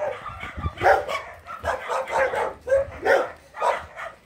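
Shelter dogs barking repeatedly, a short bark every half second or so.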